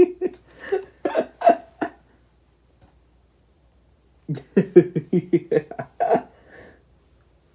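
A person laughing in two short bursts of rapid, evenly repeated pulses, with a pause of about two seconds between them.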